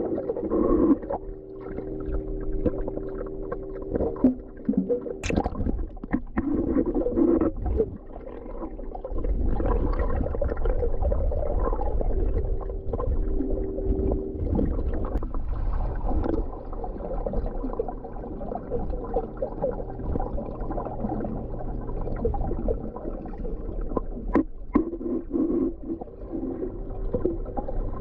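Underwater sound in a swimming pool heard through a submerged camera: a steady low hum and rumble of the water, with bubbles gurgling and short clicks and swishes as a swimmer moves through it.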